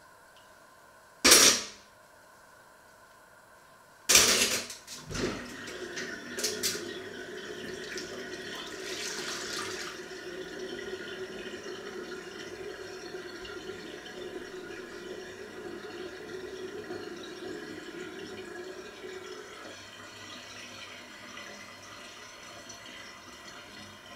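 Water running from a kitchen tap into a stainless steel sink during washing up. It is steady for about fourteen seconds and eases off near the end. Two loud sharp knocks come first, about a second and four seconds in, the second followed by a few smaller knocks.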